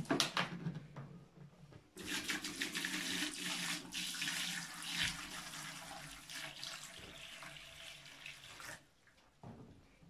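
Water pouring from a large plastic bottle into the clear plastic water-filter tank of an Arnica Hydra Rain Plus vacuum cleaner, filling it for water-filter vacuuming. A few knocks of handling come first; the steady splashing pour starts about two seconds in and tapers off near the end.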